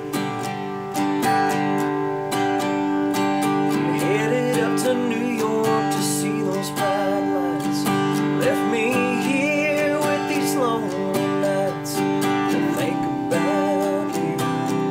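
Acoustic guitar strummed in a steady rhythm, with a man's singing voice carrying a melody over it from about four seconds in until about eleven seconds.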